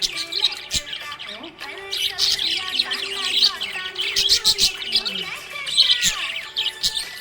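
Budgerigars chirping and warbling in a busy, continuous stream of short overlapping chirps, with a few sharp clicks.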